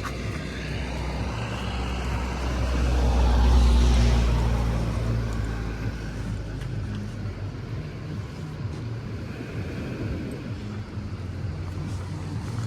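An engine passing by: a low motor hum swells to its loudest about three to four seconds in, then slowly fades, over steady outdoor background noise.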